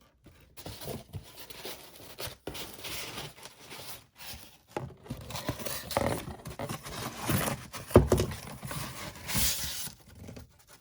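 Packaging rustling as the contents of an unboxed kit are handled and searched through, with a single sharp knock about three quarters of the way in.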